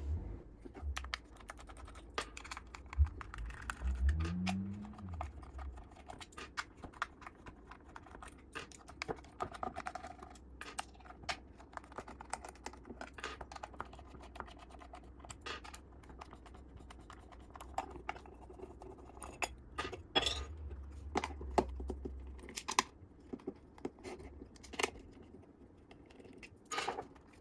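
Scattered small clicks and taps of hand work: screws being backed out of a metal robot chassis with a hex driver and set down on a wooden bench, with plastic parts handled in between.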